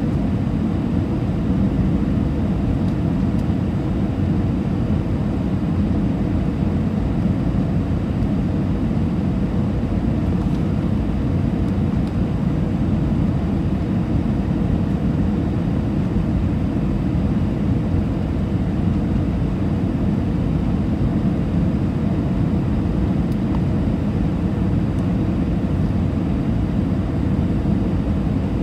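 Steady cabin noise of an Airbus A320 airliner in flight, a loud even low rumble of engines and airflow heard from inside the passenger cabin, with no change in level.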